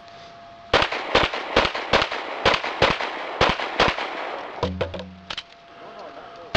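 A short steady electronic beep from a shot timer, then a fast string of about a dozen pistol shots, roughly two a second, with a brief hitch about two-thirds of the way through.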